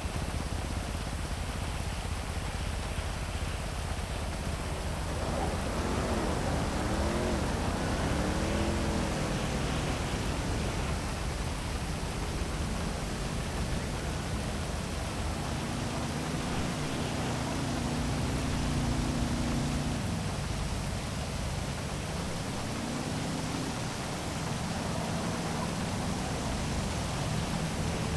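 Heavy rain falling steadily over city traffic, with car engines passing underneath that rise and fall in pitch several times.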